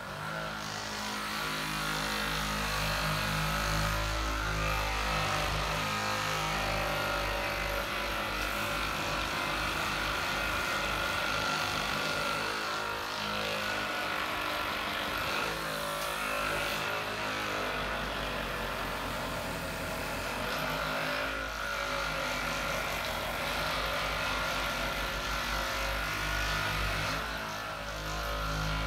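Two Hypervolt handheld percussion massagers running at their highest setting, level 3, hammering on a patient's back muscles. A steady motor whir with a low rapid pulsing that shifts as the heads press into the muscle.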